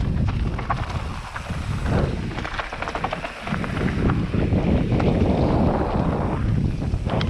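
Wind buffeting a helmet-mounted camera's microphone as a downhill mountain bike rolls fast over loose gravel. Tyre crunch and a stream of rattling clicks come from stones and the bike. The rumble eases for a moment twice in the middle.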